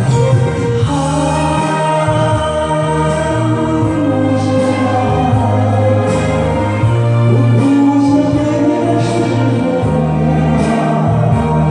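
A voice singing a slow Mandarin ballad over a music backing track, with long held notes.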